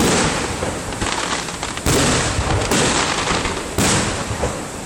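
Aerial fireworks exploding close by: four sharp bangs, one at the start, one just under two seconds in, a weaker one soon after, and one near the end, with a steady crackle and hiss between them.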